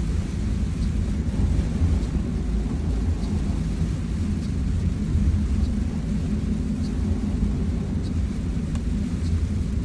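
Steady low rumble of a car being driven, heard from inside the cabin, with faint regular ticks about once a second.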